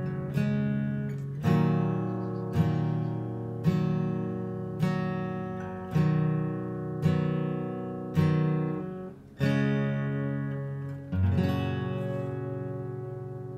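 Acoustic guitar strumming single chords about once a second, each left to ring, in the instrumental close of a song. A final chord near the end rings out and fades away.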